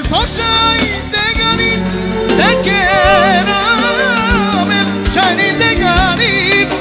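Romani party music played live by a band: a wavering, heavily ornamented melody line over a held low note, a bass line and a steady drum beat.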